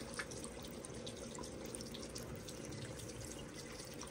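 Water running and swirling over black sand in a plastic gold pan fed by a gold-separation machine, steady, with scattered small drips and splashes.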